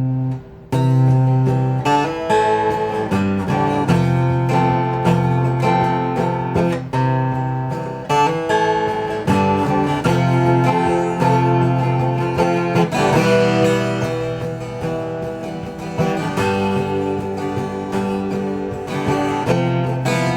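Guild F-512E maple-bodied 12-string jumbo acoustic guitar being played, its chords ringing with a steady run of string strokes. The playing breaks off briefly just under a second in, then carries on.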